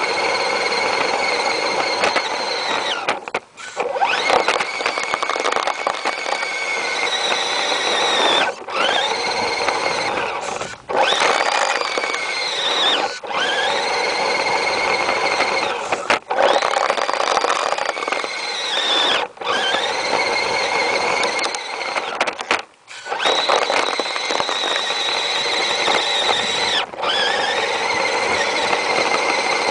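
Axial AX10 radio-controlled crawler's electric motor and gearbox whining as it plows snow. The whine rises in pitch as the truck speeds up and falls as it slows, and it stops briefly about eight times.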